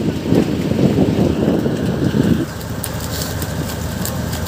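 Boat engine running steadily under a rough, low rumble. The rumble eases a little about halfway through, and a few light ticks follow near the end.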